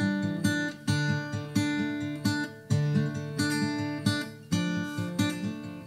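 Background music: acoustic guitar strummed in a steady rhythm with chord changes.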